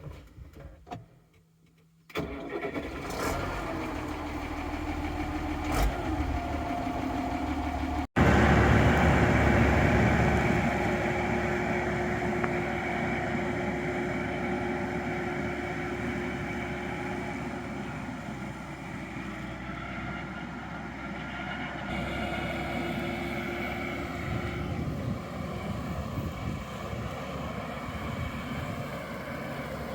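Tractor diesel engine starting about two seconds in and then running steadily. It gets abruptly louder after a short break about eight seconds in.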